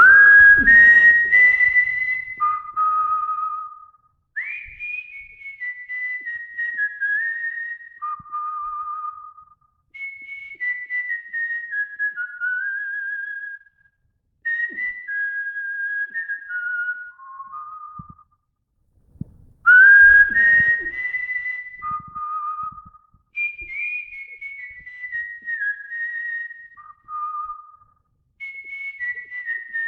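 A man whistling an unaccompanied melody by mouth in artistic whistling style: one clear pitched line with vibrato on the held notes. The tune moves in phrases separated by short breaths, and the opening phrase comes round again about two-thirds of the way through.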